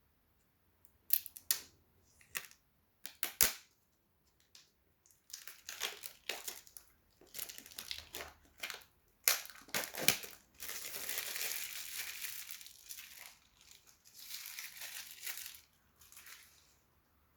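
Paper and cardboard packaging of an AirPods Pro box being handled and torn open: scattered crinkles and crackles, then two longer stretches of tearing and rustling of a few seconds each past the middle.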